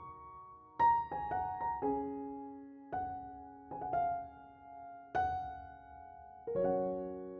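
Background solo piano music: slow, gentle single notes and chords, each struck and left to ring out.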